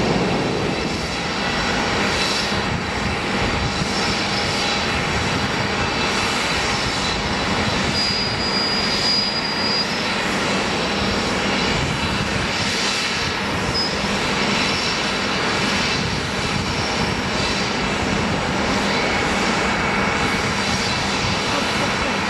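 Jet aircraft turbofan engines running steadily: a constant even rush with faint steady whining tones.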